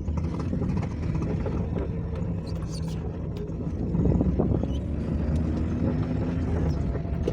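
Suzuki Mehran's small three-cylinder petrol engine running as the car is driven on a test run, with a steady low hum that grows louder about four seconds in. Its body-ground wire has just been reconnected, and the engine is running without the earlier misfire and jerking.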